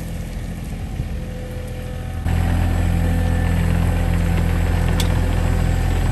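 SANY mini excavator's diesel engine running at a steady speed, a constant low hum with no revving; it jumps suddenly louder about two seconds in.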